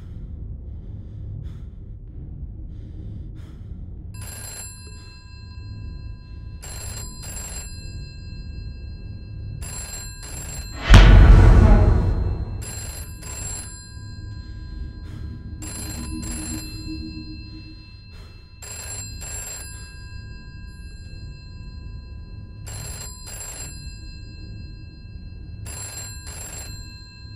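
Telephone ringing with a repeated double ring, each pair a few seconds apart, over a low droning film score. About eleven seconds in, a loud boom with a fading tail is the loudest sound.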